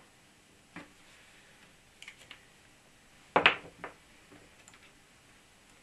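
Small clicks and a short clatter of wires, test leads and tools being handled on a wooden workbench, the loudest clatter about three and a half seconds in.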